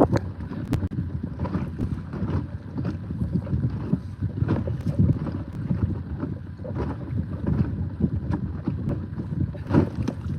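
Wind buffeting the microphone out on the water, a steady low rumble, with scattered small knocks and handling noises throughout.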